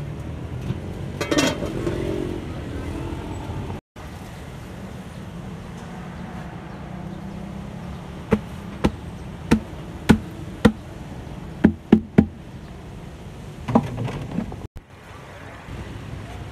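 Metal cookware clattering: a clank with a short ring about a second and a half in, then a run of about nine sharp knocks on metal pots, over a steady low rumble of road traffic.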